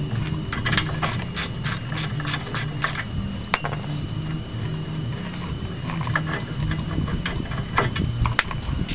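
Hand ratchet wrench clicking as it is worked back and forth on a bolt, a quick run of clicks about a second in, then scattered clicks, over a steady low hum.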